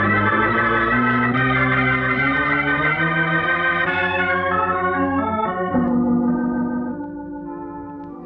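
Organ music bridge in a radio drama: sustained organ chords that shift every second or two, then fade away near the end.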